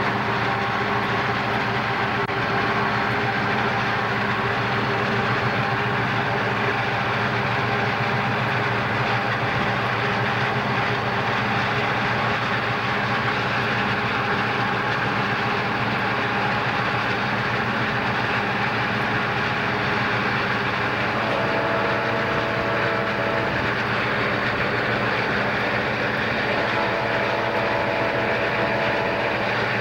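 Southern Pacific diesel-electric locomotives running steadily as they pull a freight train, heard from a car pacing alongside, with road and wind noise mixed in.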